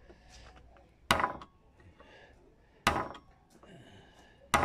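Hammer striking a wood chisel three times, each a sharp blow about a second and a half to two seconds apart, chopping a step notch into a wooden stair stringer.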